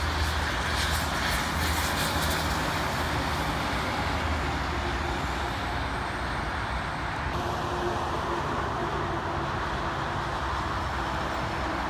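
Steady highway traffic: tyre roar and the diesel engines of passing tri-axle dump trucks, with a continuous low rumble underneath.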